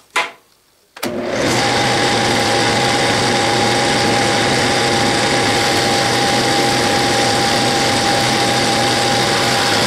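Metal lathe switched on about a second in and running steadily, with a steady high whine over the motor noise, as a carbide insert tool turns down the flange of a steel sleeve.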